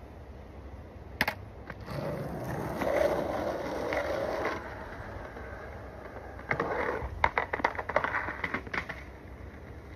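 Skateboard wheels rolling on concrete, then a quick series of sharp clacks and knocks from the board hitting the ground about two-thirds of the way in.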